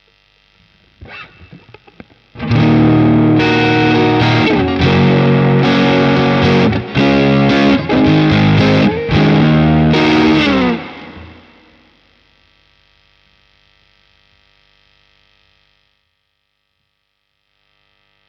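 Harley Benton ST-style electric guitar played through a Caline Pure Sky overdrive pedal, a Timmy clone. A few light notes come first, then about eight seconds of loud overdriven chords that ring out and fade, leaving a faint amp hum and hiss that cuts off near the end.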